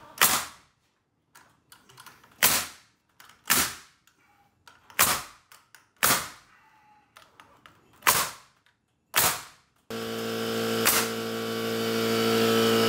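Pneumatic framing nailer driving nails into a laminated 2x12 wood beam overhead: seven sharp shots, roughly one a second. Near the end a steady motor hum sets in.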